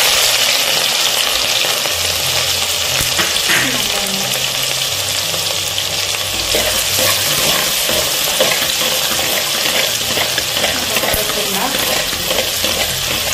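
Freshly added chopped shallots sizzling loudly in hot oil in an earthen pot, a steady frying hiss, while a steel spoon stirs them, with small clicks here and there.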